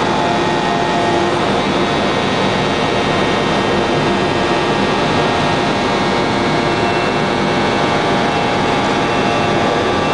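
1250-ton open-die forging press machinery running: a loud, even drone with several steady whining tones and no forging blows.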